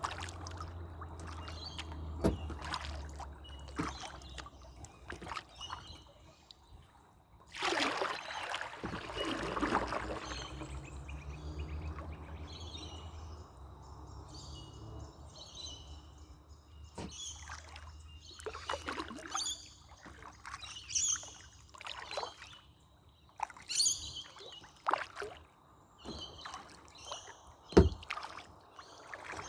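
Canoe being paddled: a long swish of water about a quarter of the way in, and short knocks and splashes from the paddle scattered throughout. Birds sing in the background through the second half.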